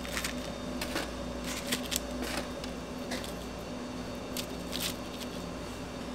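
Short crisp rustles and crinkles as gloved hands lay crispy crumb-fried pork pieces onto lettuce on kraft paper, several times in the first five seconds, over a steady low hum of kitchen equipment.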